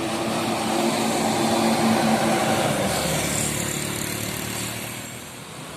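Bus engine and tyre noise going past, loudest in the first two or three seconds and then fading away.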